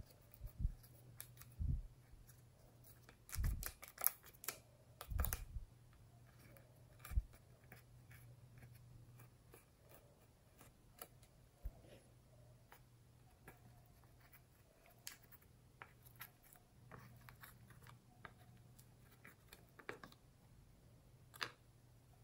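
A small plastic stick scraping and picking pressed eyeshadow powder out of the pans of a plastic palette, in irregular short scrapes and clicks, with a denser run of louder ones about four seconds in.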